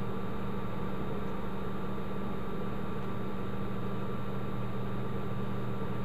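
Steady electrical hum with a constant hiss underneath, unchanging and without any distinct event.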